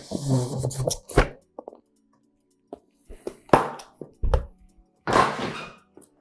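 Graphics card packaging being handled and opened: several short rustles and knocks, over faint background music.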